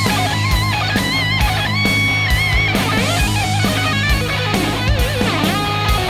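Background rock music: an electric guitar playing a lead line with bent, vibrato notes over bass and a steady drum beat.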